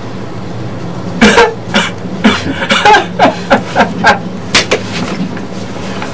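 A man's voice in a string of short, irregular bursts, about a dozen, starting about a second in and stopping near the end, over a steady low hum.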